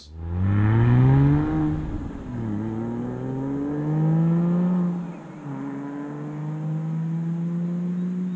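Car engine accelerating hard through the gears. Its pitch climbs, then drops at an upshift about two and a half seconds in, climbs again, and drops at a second upshift about five and a half seconds in before climbing once more.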